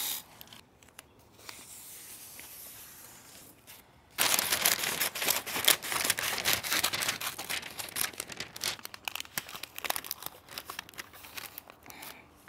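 Brown kraft masking paper crinkling and rustling as it is unrolled and handled, a dense crackle starting about four seconds in, with a fainter steady rasp before it.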